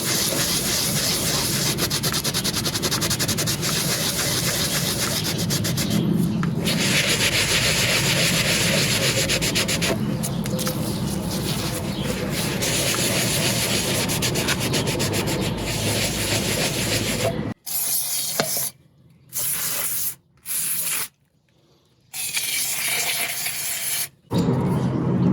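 Steady abrasive rubbing, like sanding or scrubbing a surface, that continues for most of the stretch. Near the end it is broken by abrupt cuts into brief near-silent gaps.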